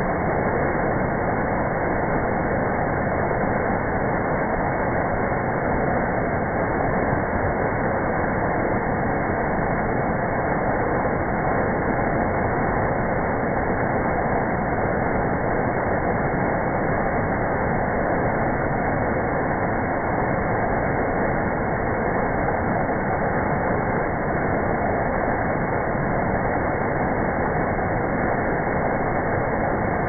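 Small waterfall cascading over rocks: a steady, unbroken rush of falling water.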